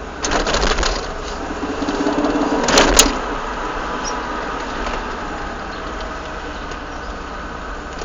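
Peugeot 306 Cabriolet 1.6i under way with a rapid clacking rattle, a quick run of clicks just after the start and a sharper burst around three seconds in, over steady running noise. This is the clacking the car makes when accelerating in a straight line.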